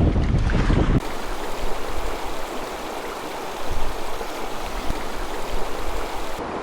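Rushing river water, a steady hiss, taking over abruptly about a second in from wind rumbling on the microphone.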